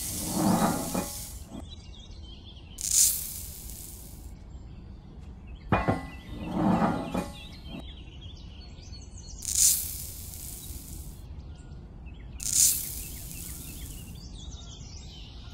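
Three short bursts of hissing, each about a second long, like a spray. Between them come sharp clicks, each followed by a brief lower sound.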